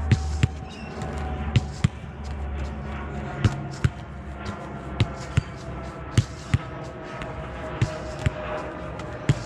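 A football kicked against a brick wall and rebounding: pairs of sharp thuds, the kick and the ball striking the wall, repeating about every second and a half.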